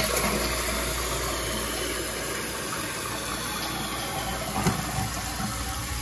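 Toilet flushing on a test after a new flapper and fill valve were fitted: the tank drains past the flapper, then a steady rush of water as the new fill valve refills the tank. The repaired toilet is working properly.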